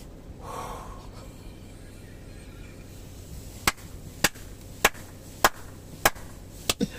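A car's turn-signal or hazard-light indicator ticking as the car pulls over: sharp, evenly spaced ticks about 0.6 s apart, starting a little over halfway in.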